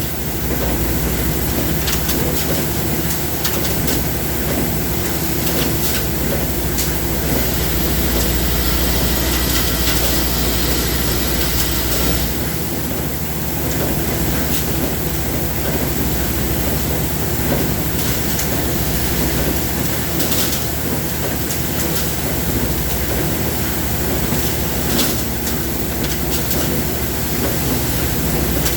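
Machinery running steadily and loudly with a low hum, overlaid by frequent crackles and clicks.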